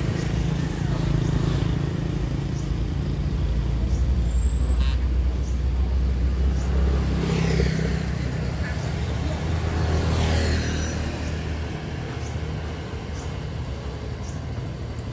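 A motor vehicle's engine running nearby, a low rumble that fades away about twelve seconds in.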